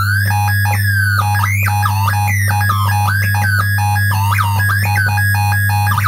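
Circuit-bent UM3561 siren/sound-effect chip making electronic tones that glide up and down, jump in pitch and stutter as its pitch pots and buttons are worked, over a steady low hum.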